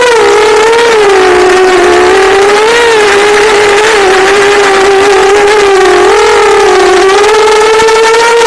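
Loud whine of a quadcopter's brushless motors, one pitch with several overtones that wavers up and down as the motors speed up and slow. The owner calls it a bad motor sound and is unsure whether it comes from the frame, the PID tuning or the motors themselves.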